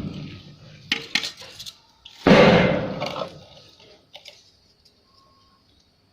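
Hand-plastering work with a steel trowel and wet cement render: a few sharp metallic clinks about a second in, then a louder scrape of mortar at about two and a half seconds that fades over about a second.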